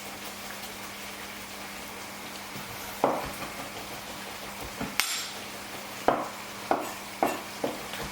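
Spoon stirring curry in a cooking pan and knocking against the pan: a few sharp clanks, one about three seconds in and a quicker run of them near the end, over a steady low hum.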